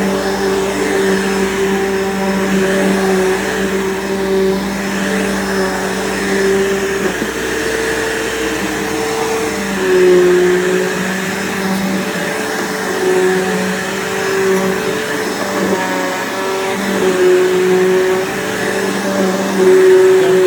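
Bissell PowerForce bagged upright vacuum cleaner running steadily on a floor, its motor note wavering slightly.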